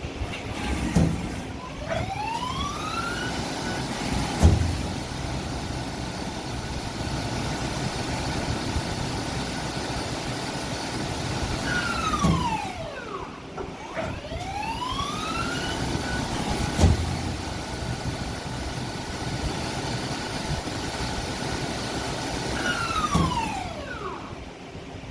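Okuma LB35 CNC lathe spindle running up with a rising whine, holding at speed, then winding down with a falling whine, twice over. Sharp clunks sound near the starts and stops, the loudest as the spindle comes up to speed.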